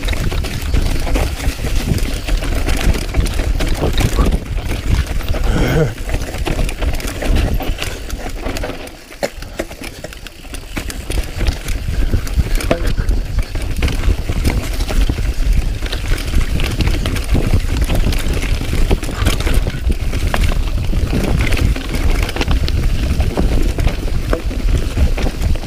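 Mountain bike descending a rough dirt and rock trail: tyres crunching over stones and the bike rattling, with heavy wind rumble on the microphone. The noise eases briefly about nine seconds in, then picks up again.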